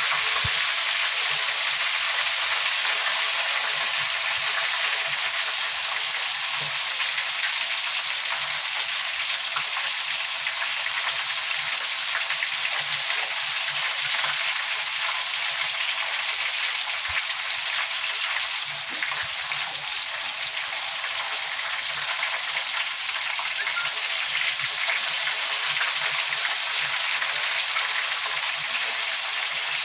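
Chicken pieces frying in hot oil: a steady, even sizzle.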